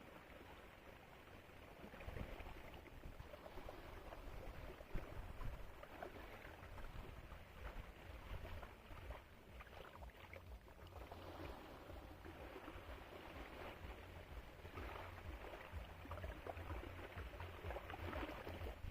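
Sea water washing and lapping in uneven swells, with wind rumbling on the microphone.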